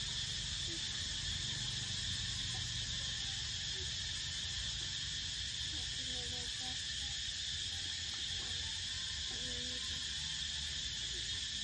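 Steady chorus of insects chirring, a high, even drone, with faint distant voices now and then.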